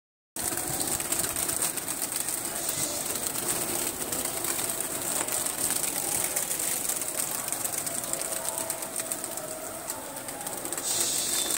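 A flock of domestic high-flying pigeons taking off and circling close overhead, many wings flapping in a dense, continuous patter.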